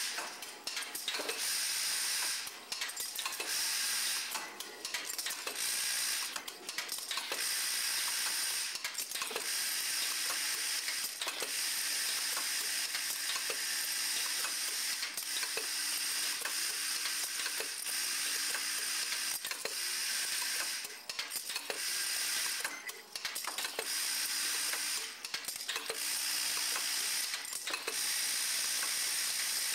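MagiCutter automated coupon-cutting, hot-stamping machine running: a steady hiss with regular mechanical clicks about once a second as the machine cycles.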